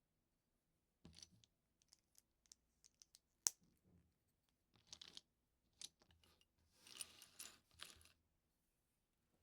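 Plastic LEGO pieces being handled and pressed together: scattered light clicks, one sharp click about three and a half seconds in, and short rustling rattles of parts around five seconds and again near eight seconds.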